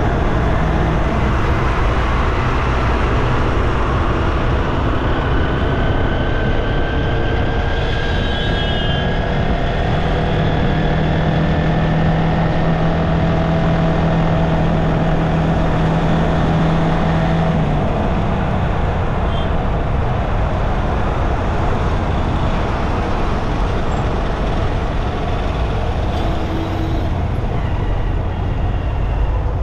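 Street traffic heard from a moving bike: a steady din of vehicle engines and road noise. One engine's drone holds steady for several seconds in the middle.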